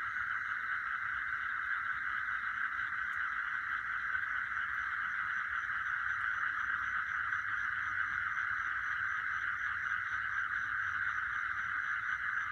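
Dense night-time chorus of calling animals, a steady massed churring with no break. A fainter, higher chirp repeats about three times a second over most of it.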